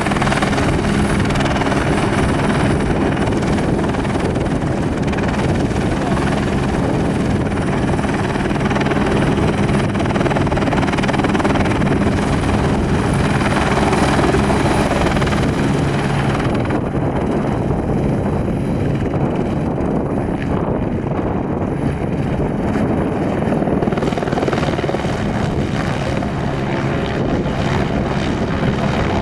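Airbus Helicopters AS350 B3 (H125) Ecureuil running loud and steady: the dense beat of the main rotor under a thin, high, steady turbine whine.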